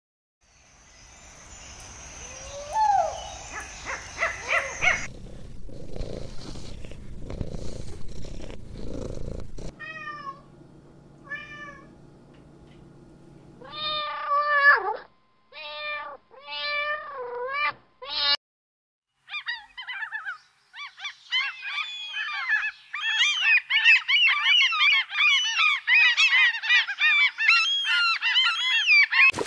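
Cats meowing in a string of separate clips: short mews in the middle, then several loud meows, and near the end a long, dense run of many overlapping high cries.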